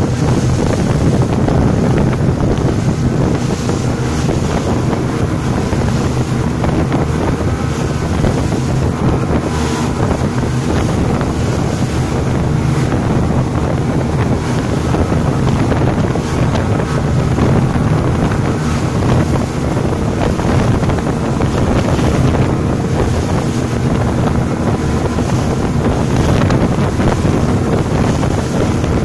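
Speedboat running fast across open sea: a steady engine sound under the rush of water and spray from the hull, with wind buffeting the microphone.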